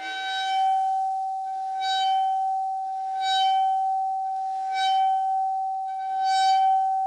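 Bowed metal Chladni plate ringing with one steady high tone. A scratchy rasp from the bow comes back about every second and a half, once per stroke.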